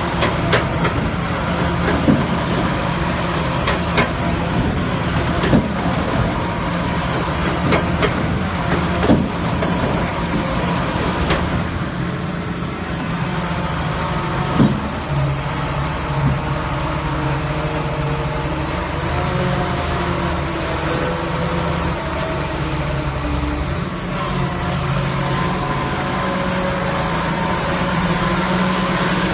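Hitachi EX300-1 crawler excavator's diesel engine running steadily, with a few sharp knocks in the first half.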